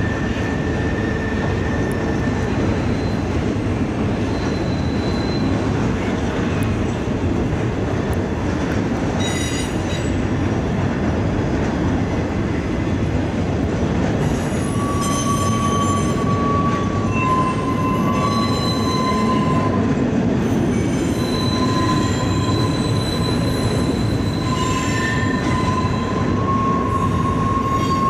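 Loaded container cars of a freight train rolling steadily across a steel truss railway bridge, with a constant heavy rumble. High wheel squeals come and go at several pitches, getting more frequent from about halfway through.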